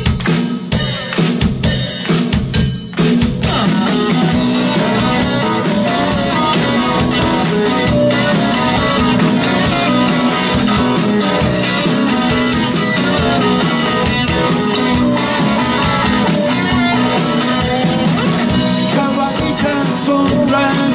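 Live rock band starting a blues number: a few separate sharp hits in the first three seconds, then drums, bass, acoustic and electric guitars and keyboard playing together at a steady level.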